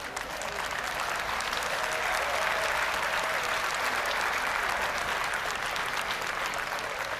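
Audience applauding, a dense patter of many hands clapping that builds over the first couple of seconds and then holds steady.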